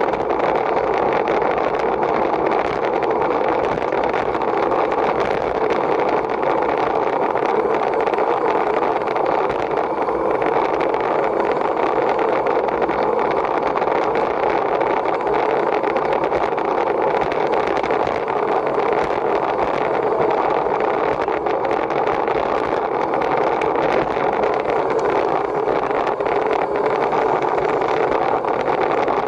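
Steady, unbroken rush of wind and tyre noise on a camera riding on a racing bicycle at speed.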